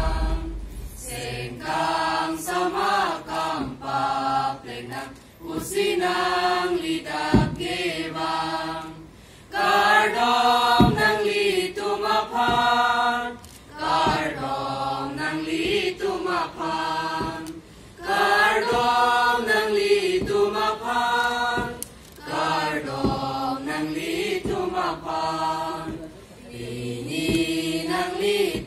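A choir of school students, boys and girls, singing together into microphones, phrase by phrase with short breaks between. A low thump sounds right at the start.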